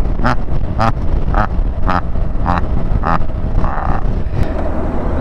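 Motorcycle riding at road speed: a steady engine drone under heavy wind noise on the microphone. Over the first three seconds, six short, evenly spaced sounds come at nearly two a second.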